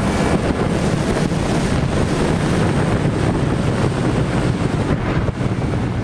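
Onboard sound of a sport motorcycle at speed on a track straight: the engine runs steadily under heavy wind noise on the microphone.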